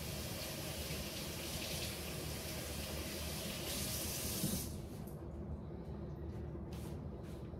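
Kitchen sink tap running as peeled potatoes are rinsed under it. The water shuts off about four and a half seconds in, followed by a few faint clicks.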